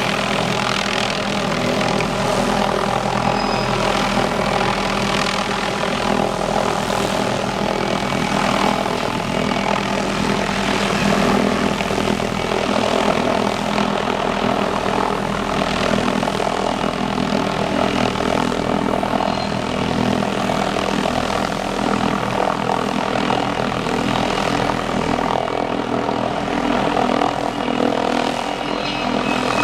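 Hughes 500D helicopter, with its Allison 250 turboshaft and rotor, running close by: a loud, steady drone that does not let up.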